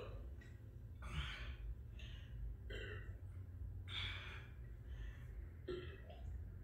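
A person breathing out in several audible sighs and gasps, catching their breath after chugging a beer, over a steady low room hum.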